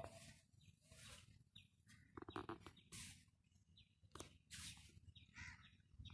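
Near silence, with faint high chirps and soft bursts of hiss.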